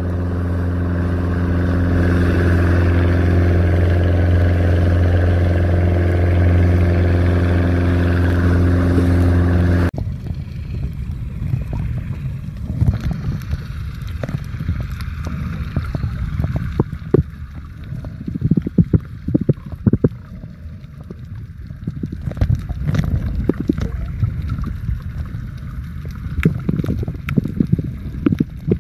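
A boat's engine runs steadily and loudly, then cuts off abruptly about ten seconds in. Muffled underwater sound follows, with bubbling and many scattered small clicks and knocks.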